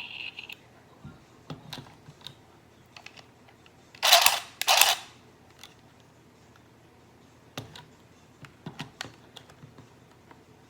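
Scattered clicks and taps from handling a small plastic handheld sewing machine and the fabric, with two short, loud noisy bursts about four seconds in.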